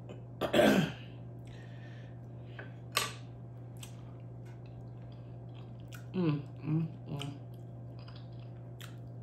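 Close-up chewing and sharp wet mouth clicks of a person eating mukbang-style. There are short hums of the voice just under a second in and three more between about six and seven seconds, over a steady low hum.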